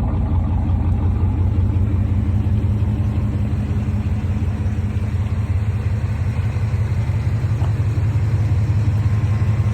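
Chevrolet Monte Carlo's engine idling steadily, a low even hum with no revving.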